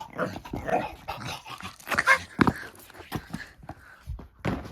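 Dog making short, irregular vocal sounds, loudest about two seconds in.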